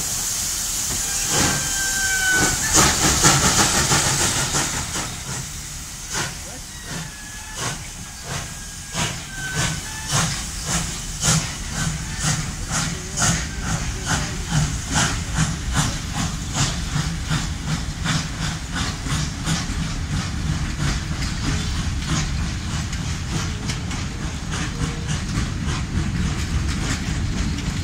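Ol49 steam locomotive starting a train: a loud hiss of escaping steam, then exhaust chuffs that begin about one a second and quicken steadily as it gathers speed. A low rumble of the coaches rolling past grows underneath.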